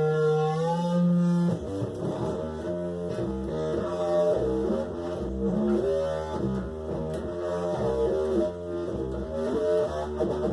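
Electric guitar played through a chain of effects pedals: a held note slides upward in pitch, then about a second and a half in it cuts abruptly to a dense, warbling wash of shifting notes. Near the end this turns into a fast pulsing pattern.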